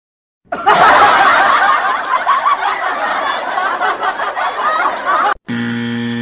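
Laugh-track sound effect: many voices laughing and snickering together, starting about half a second in and cutting off suddenly about five seconds in. A steady held musical tone follows near the end.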